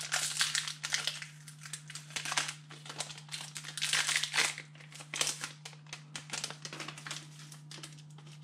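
Foil wrapper of a Pokémon TCG booster pack crinkling in the hands as the pack is opened, in irregular crackly bursts over a steady low hum.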